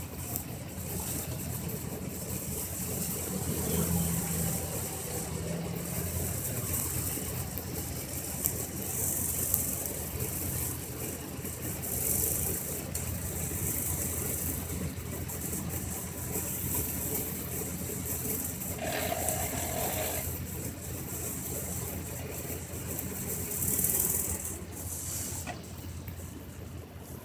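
Off-road Jeep engine running steadily over rough ground, the body rattling, with repeated bursts of hissing noise on top.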